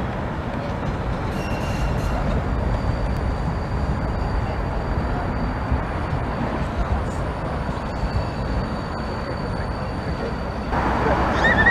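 Siemens ULF low-floor electric tram passing: a steady low rumble of wheels on rail, with a thin, steady high whine held through most of it. Near the end the sound jumps louder with street noise.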